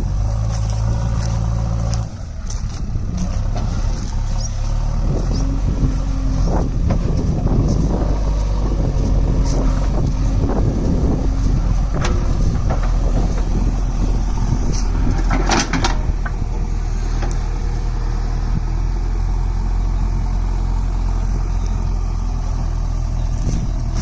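JCB 3DX backhoe loader's diesel engine running steadily under load while the machine works in loose sand. The engine note shifts in the first half and then holds steady, with a short hiss about fifteen seconds in.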